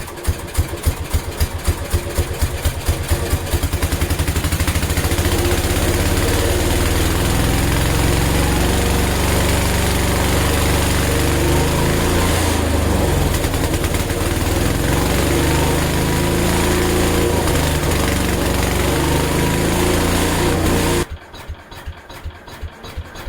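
An engine firing in slow, uneven pulses picks up speed over the first few seconds, then runs steadily. About 21 seconds in, the sound drops suddenly to a quieter, slower pulsing.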